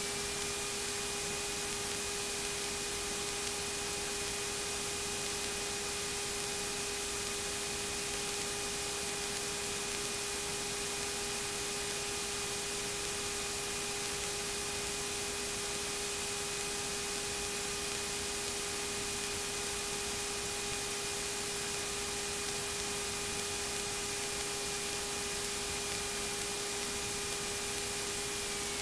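Steady hiss of a light aircraft's cockpit intercom audio feed, with several faint steady whining tones; the highest tone shifts slightly in pitch at the very end.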